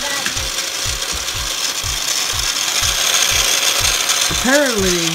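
Toy car race track set running: a steady mechanical rattle with a regular low thump about twice a second, as die-cast toy cars run along the plastic track.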